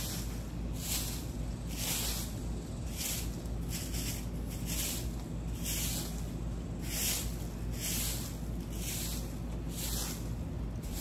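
Straw broom sweeping over dirt and leaf debris in repeated even strokes, a swish about every half second.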